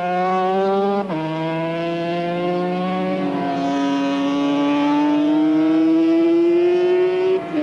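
Racing motorcycle engine at high revs: its pitch drops about a second in, then climbs steadily for several seconds and drops again near the end, as with upshifts under acceleration.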